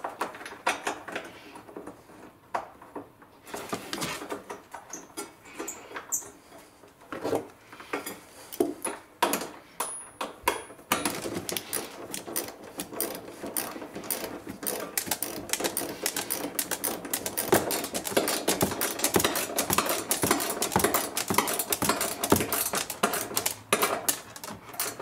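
Socket ratchet clicking in spells as bolts are run in, mixed with scattered knocks of metal parts being handled. The clicking turns near-continuous and rapid from about halfway through.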